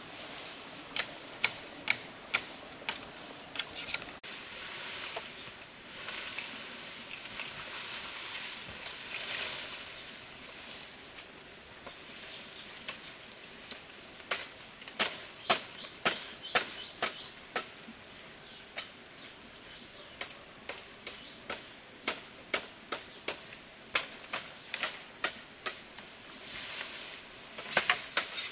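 Irregular sharp taps, often several a second and coming in runs, with a soft hiss from about four to ten seconds in.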